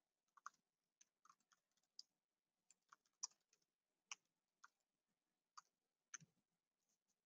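Faint computer keyboard typing: irregular key clicks, over a dozen spread across several seconds, with one heavier knock near the end.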